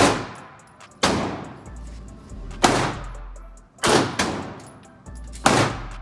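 Gunshots fired one at a time, about a second and a half apart, five in all, each followed by a long echoing tail.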